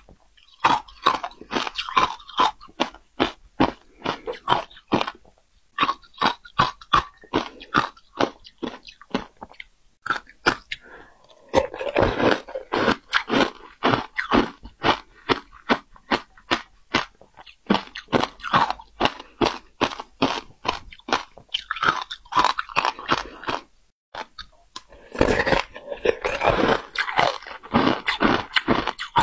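Close-miked chewing of shaved ice in passion fruit syrup: a rapid run of crisp crunches, about three or four a second, broken by a few short pauses.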